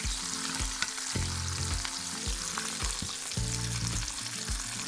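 Ribeye steak sizzling in bubbling butter and fat in a ridged grill pan: a steady crackling hiss. Background music with low bass notes plays underneath.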